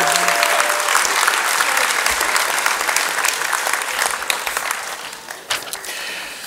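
Audience applauding a graduate crossing the stage, a dense patter of many hands clapping that thins out and fades over the last couple of seconds.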